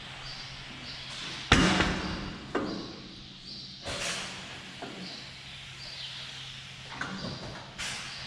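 Steel parlor gate and its latch hardware banging: one loud metallic slam about one and a half seconds in, then five lighter knocks and clanks. A steady low hum runs underneath.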